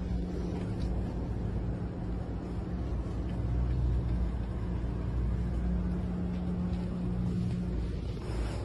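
Bus engine running, heard from inside the cabin: a steady low rumble with a constant hum.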